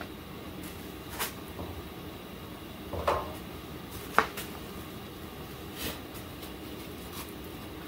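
About four scattered light knocks and clicks from tools or metal parts being handled, the sharpest a little past four seconds in, over a low steady room hiss.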